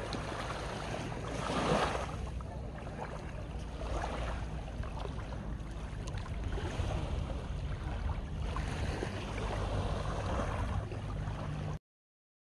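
Sea waves surging and washing up a sand-and-gravel beach, swelling several times, over a low wind rumble on the microphone; it cuts off suddenly near the end.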